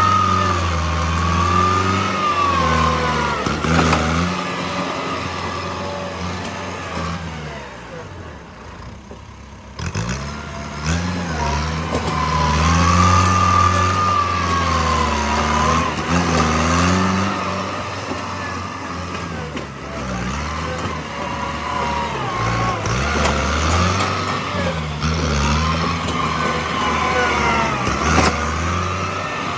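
Bulldozer's diesel engine working, its pitch rising and falling again and again as it takes load, easing off about eight seconds in before picking up again.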